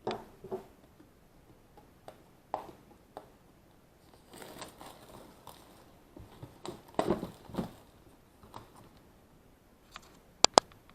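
Plastic packaging being handled and pulled off a product box: irregular crinkling, rustling and light knocks, busiest in the middle, with two sharp clicks near the end.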